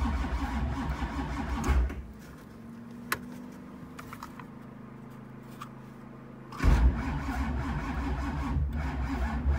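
Starter cranking the cold, flooded 383 stroker V8 of a 1985 Camaro Z28 without it catching, on a battery that is running down. The cranking stops about two seconds in, a single click sounds in the pause, and cranking starts again near seven seconds.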